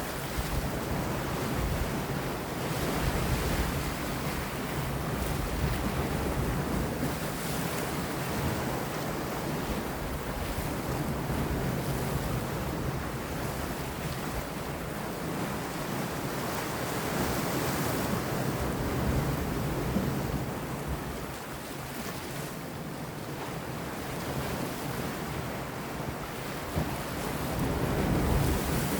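Sea waves washing and breaking against rocks, with wind. A steady rush of surf that eases a little past the middle and swells again near the end.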